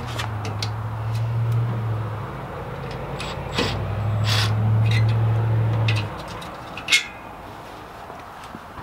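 Cordless impact driver running on headlight mounting bolts in two bursts, about two seconds and then about two and a half seconds long, with a sharp clack about seven seconds in.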